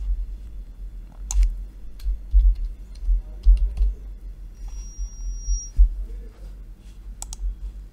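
Scattered computer keyboard keystrokes and mouse clicks, a few at a time with pauses between, over low thumps.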